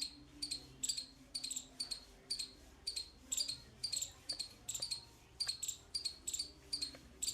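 Squirrel giving a run of short, high-pitched chirps, about three a second, repeated with little pause.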